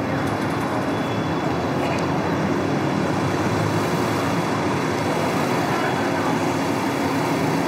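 Steady mechanical rumble with a constant low hum, even and unbroken throughout.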